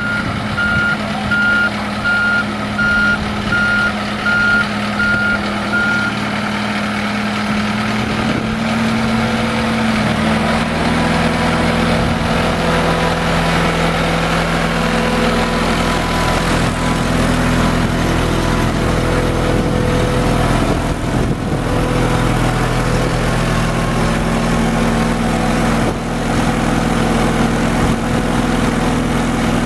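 Boat travel lift's engine running with its warning beeper sounding a little over once a second; the beeping stops about six seconds in, and about ten seconds in the engine note rises and steadies as the lift keeps working.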